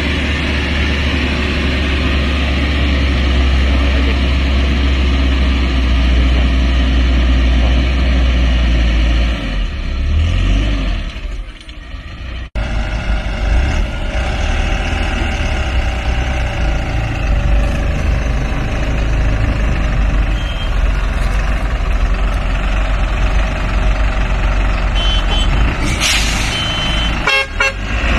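Heavy truck engines running under load on a steep dirt road, with a deep steady engine rumble. Near the end come a few short horn toots.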